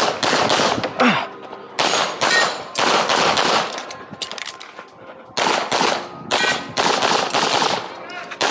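9mm CZ Shadow 2 pistol firing rapid pairs of shots at close targets, with a short break in the shooting about four seconds in before more pairs follow.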